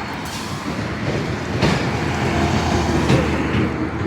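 Steady rumbling vehicle noise with two sharp clanks about a second and a half apart.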